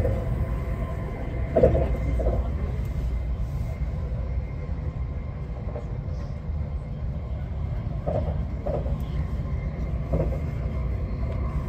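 Arlanda Express electric train running, its steady low rumble heard from inside the passenger car.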